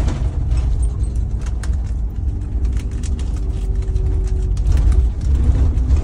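Steady low rumble of a moving bus, its engine and tyres heard from inside the cabin, with light rattling clicks throughout.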